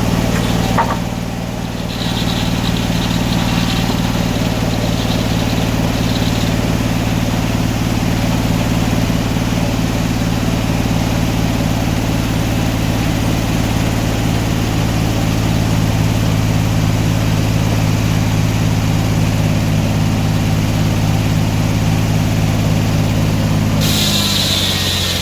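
Sawmill engine running at a steady speed under a homemade governor. A brief dip about a second in, and a higher hiss joins near the end.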